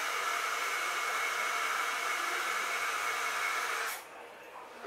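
Small electric grinder's motor running steadily as it grinds roasted acorns with allspice, then cutting off about four seconds in.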